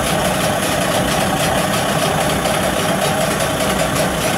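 CG Marine 9.9 hp MAX two-stroke outboard motor, warmed up, running steadily with its cowling off.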